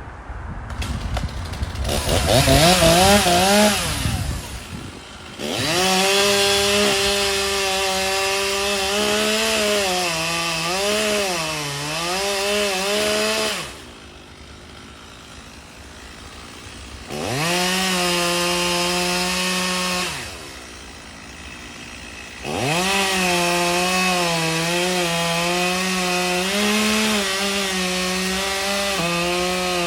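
Two-stroke chainsaw revving to full throttle in three long runs, dropping back to idle between them. Its pitch sags in places as the chain bites into the wood. The last run falls away near the end.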